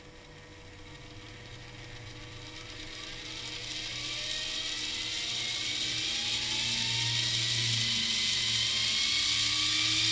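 Small DC drawer motor from a CD-ROM drive, under Arduino PWM control, whirring and speeding up as its speed pot is turned up: a rising whine that grows steadily louder and levels off near the end, close to full speed.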